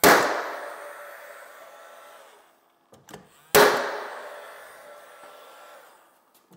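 Cordless nail gun firing twice, about three and a half seconds apart, nailing stair skirt-board trim. Each shot is a sharp bang that trails off over a couple of seconds.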